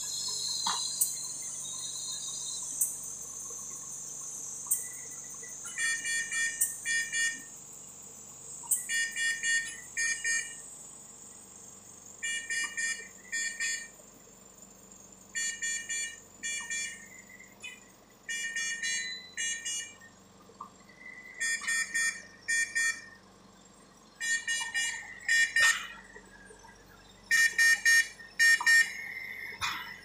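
Jyoti Dhaman-III ICU ventilator sounding its alarm just after ventilation is started: groups of four or five short high beeps, repeating about every three seconds from about six seconds in. The alarm comes from parameters outside the default alarm limits, which the operator next clears by raising the high breath-rate limit.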